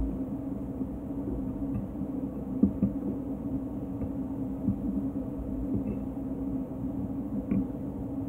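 A sharp knock at the start, then a steady low hum with a few faint clicks and scrapes of a knife and fork on a plate as food is cut.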